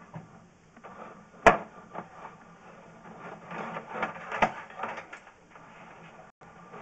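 Sewer inspection camera's push cable being fed down a drain line: irregular scraping and clattering, with a sharp knock about a second and a half in and another about four and a half seconds in, over a faint steady low hum.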